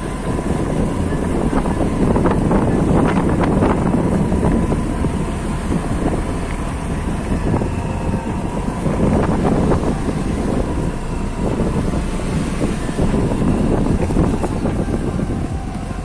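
Motor scooter riding along, its engine running under heavy wind noise buffeting the microphone.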